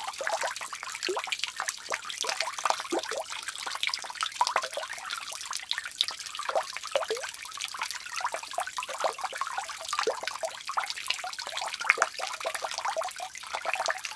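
Water running from a bath tap in a steady stream, splashing irregularly into the tub and over a portable speaker held under it.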